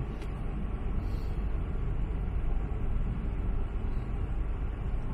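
Steady low rumble of a vehicle's engine running at low speed, heard from inside the cabin.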